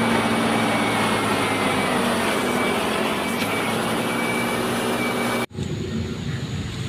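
Steady mechanical running noise with a low hum and a faint high whine. It cuts off abruptly about five and a half seconds in, and a quieter, different background follows.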